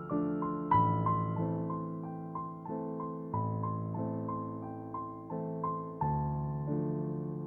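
Soft solo piano music: a slow flowing run of single notes over sustained low chords that change every couple of seconds.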